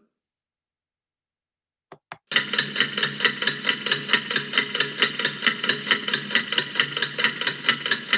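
A rapid, even run of sharp mechanical clicks, about six or seven a second, preceded by two single clicks a moment before.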